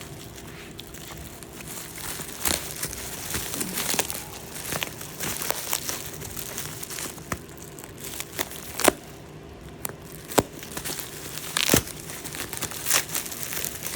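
Plastic bubble-wrap packaging being handled and pulled apart: irregular crinkling and rustling with scattered sharp crackles and snaps, a few louder ones in the second half.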